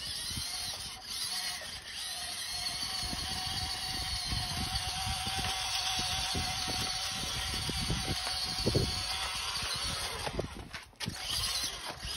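Radio-controlled model truck running: a steady high electric-motor and gear whine over a rough, crackly low rumble. The sound drops out briefly about a second before the end, then picks up again.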